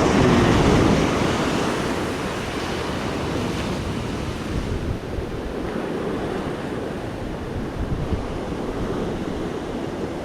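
Ocean surf breaking and washing up a beach, loudest in the first second and then subsiding into a steady wash, with wind buffeting the microphone.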